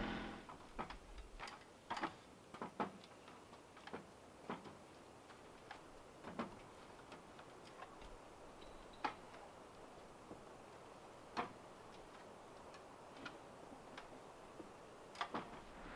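An engine, likely the tractor's, dies away at the very start. Then come sparse, irregular light clicks and taps, about twenty over the stretch, against a quiet background.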